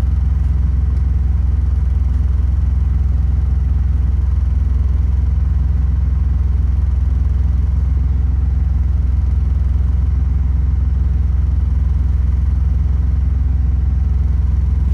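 Suzuki Celerio's engine idling, heard as a steady, unchanging low drone inside the car's cabin.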